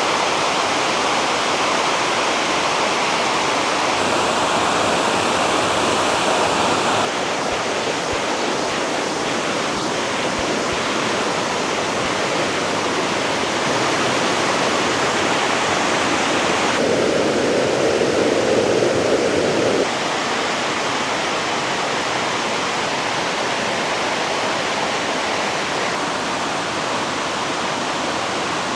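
Water rushing steadily down a multi-tiered waterfall and its rocky rapids, a dense, continuous wash of sound. Its tone shifts abruptly a few times, about a quarter, a half and two-thirds of the way through.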